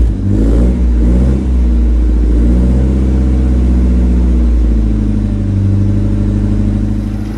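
Holden Gemini TE's Isuzu 1.6-litre four-cylinder engine running just after a cold start, heard at the exhaust. It is uneven and wavering for the first second or so, then settles to a steadier note.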